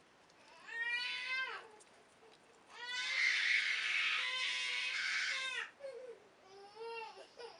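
Three high-pitched wailing cries: a short one, then a rough, drawn-out one of about three seconds, then a shorter one near the end, each rising and falling in pitch.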